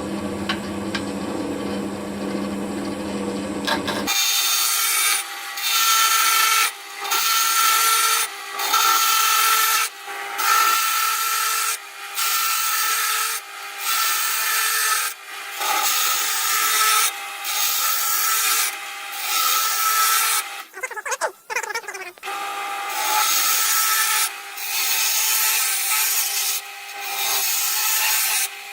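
Wood lathe spinning a wooden blank while a bowl gouge cuts into it to round it off. After a few seconds of the lathe running, the gouge bites in repeated scraping passes about every second and a half, with a brief break near three-quarters of the way through.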